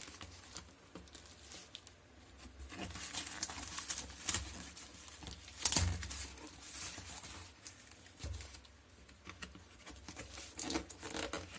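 Cardboard box being opened by hand: the flaps rustle, scrape and crinkle in irregular bursts, with one louder knock about six seconds in.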